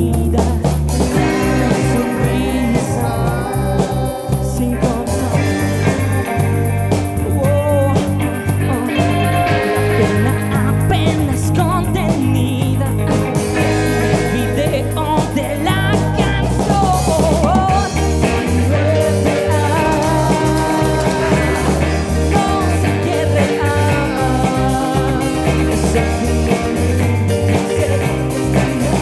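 Live rock band playing: electric guitars, electric bass, drum kit and keyboards, with the lead singer's voice over them.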